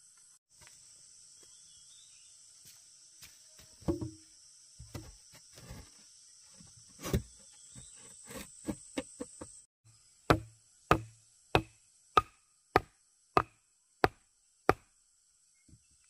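Rough wooden planks knocking and scraping as they are fitted into a frame. About ten seconds in come eight steady blows, roughly 0.6 s apart: a bamboo stake being pounded into the ground with a short log. A steady high drone of insects runs underneath.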